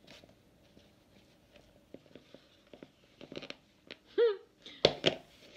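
Metal bundt pan handled over a glass cake plate as a cake is turned out: small clinks and knocks, then two sharp knocks close together near the end. Shortly before the knocks comes a brief vocal sound that rises and falls in pitch.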